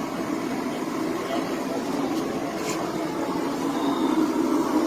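Blacksmith's forge running with a steady, even drone, no hammer blows.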